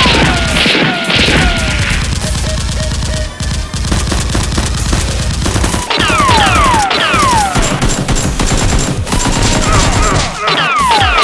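Rapid gunfire sound effects, with music underneath. Sets of falling, whistle-like tones come in about six seconds in and again near the end.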